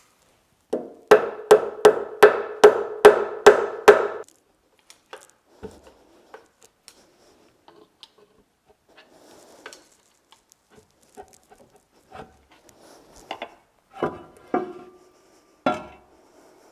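A hammer striking a metal part: about eight ringing blows in quick succession, roughly two a second, then scattered light clinks and a few more ringing knocks near the end.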